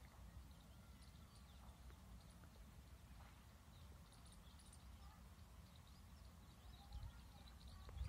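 Near silence: a low steady rumble with faint, scattered high chirps of distant birds.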